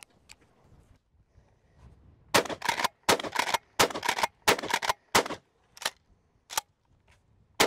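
Rock Island All Gen 12 pump-action 12-gauge shotgun fired five times in quick succession, about 0.7 s apart, with low-brass 7.5 birdshot. The shots are followed by sharper, quieter clacks of the pump action being worked. Faint clicks of shells being loaded come before the shots.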